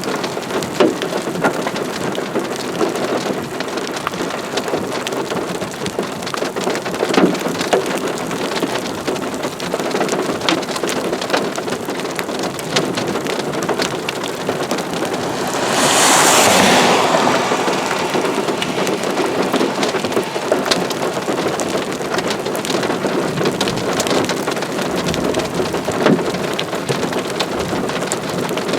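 Steady rain, with many single drops ticking on a nearby surface. About halfway through, a louder rush swells and fades over a couple of seconds.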